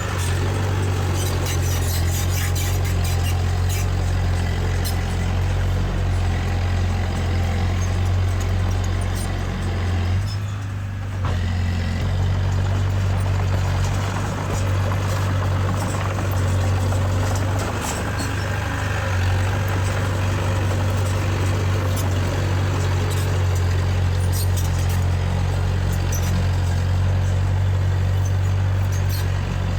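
Heavy diesel earthmoving machinery running steadily under load, with light clicking and clatter in the first few seconds; the engine note drops briefly about ten seconds in, then picks back up.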